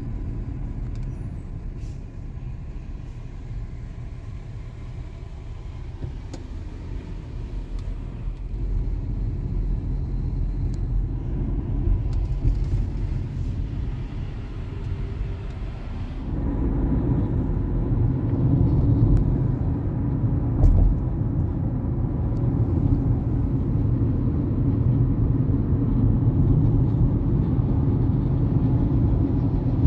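Steady low rumble of road vehicles driving, growing louder and heavier about halfway through.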